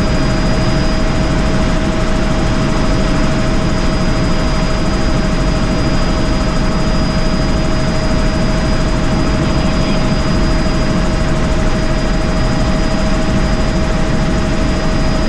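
Helicopter in flight heard from inside the cabin: a steady, loud rush of rotor and engine noise with a constant high whine running through it.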